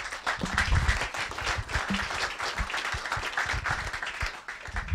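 Audience applauding, many hands clapping together; it starts abruptly.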